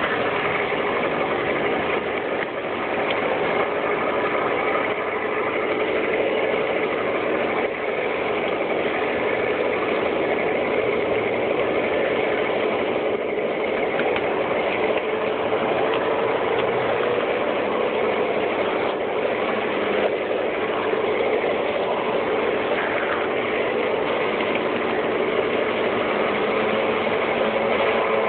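Garden-scale model railway train running along its track: a steady mechanical whir and rattle of the motor, gears and wheels on the rails.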